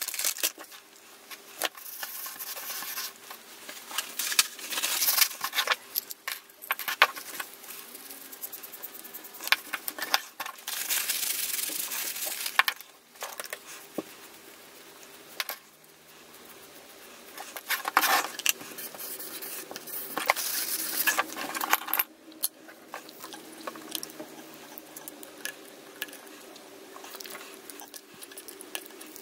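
Paper tissue rubbing as the compass indicator's glass and dial parts are wiped clean, in several spells of scrubbing, with light clicks and taps from small parts being handled.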